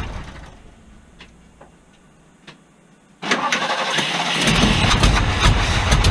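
The starter cranking the 1974 Ford F-350's 390 V8, which has not run in years and will not keep running. The noise dies away over the first second and there is a short pause with a few faint clicks. About three seconds in, the cranking starts again suddenly, and a deeper rumble joins in a second or so later.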